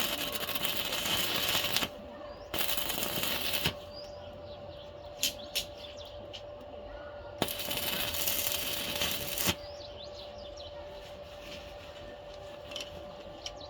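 Electric arc welding crackling in three bursts: two short ones near the start and a longer one of about two seconds in the middle, each starting and stopping abruptly. A steady hum runs underneath, and small birds chirp faintly in the pauses.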